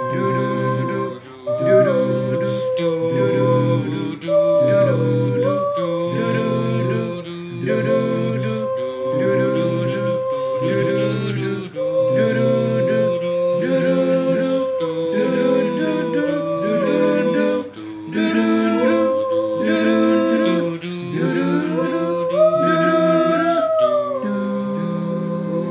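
Five-voice a cappella group singing: held high melody lines over lower voices that repeat a steady pulsing chord pattern. Near the end the lower voices settle onto a sustained chord.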